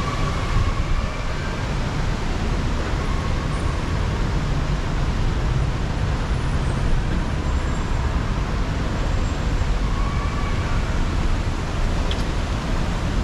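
Steady road traffic noise: a continuous low rumble with a hiss over it from cars idling and moving along a busy kerbside road.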